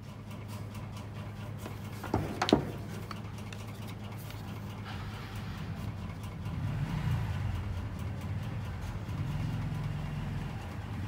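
Steady low mechanical hum, with a brief sharp clatter of hard parts knocking together about two seconds in as the tool is handled.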